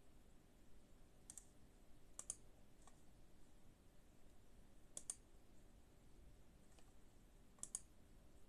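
Near silence with a handful of faint, sharp clicks spread a second or more apart, several of them quick double clicks.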